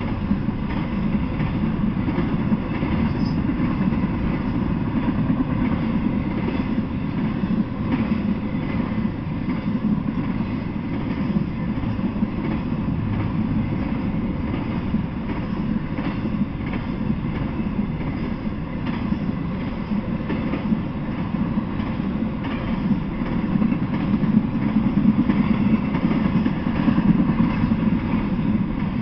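Intermodal freight train cars rolling past: a steady rumble of steel wheels on the rails, with scattered faint clicks from the wheels.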